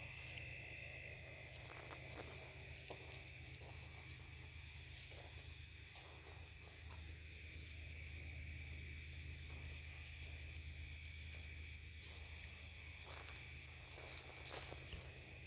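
Steady high-pitched chorus of night insects such as crickets, under a low steady hum, with a few faint rustles in leaves and gravel.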